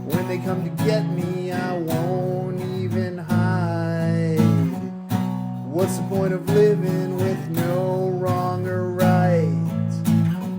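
Music: strummed acoustic guitar chords under a melody that slides in pitch.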